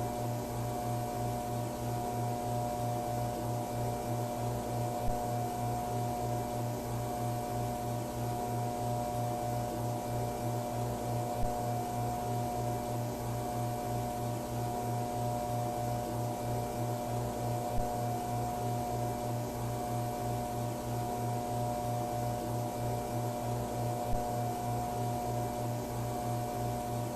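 Steady electrical buzz of fluorescent ceiling lights, the Backrooms hum, with a low pulsing drone under several held tones and a hiss. A short click comes about every six seconds.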